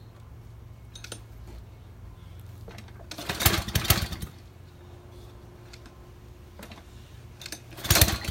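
Small gasoline engine on a homemade pressure washer being cranked over twice, each attempt a short burst of about a second with rapid pulses, the engine not catching and running.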